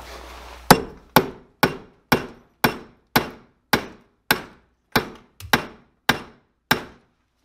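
A hammer driving a steel punch against the punch lock on the gland of a skid steer's hydraulic cylinder clamped in a vise: about a dozen sharp metal-on-metal strikes, roughly two a second, each ringing briefly. The lock is tight and has not yet given.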